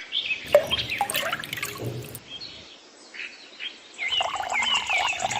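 Water dripping and trickling, with birds chirping that grow louder and busier near the end.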